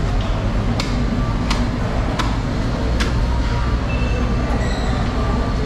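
Steady low rumble of engine and vehicle noise, with four sharp clicks about three-quarters of a second apart in the first three seconds and a few faint short high tones after that.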